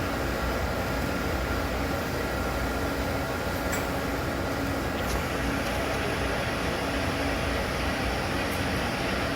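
Steady hum of a Star Ecas 20T CNC Swiss-type lathe and its ancillary units running, with two faint clicks a few seconds in.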